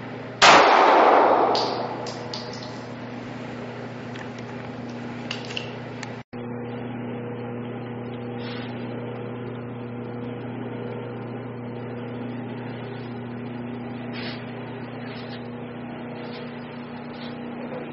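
A single shot from a compact Sig pocket pistol in an indoor range, a sharp crack with a long echo that dies away over a second or two. A steady low hum follows, with a few faint clicks.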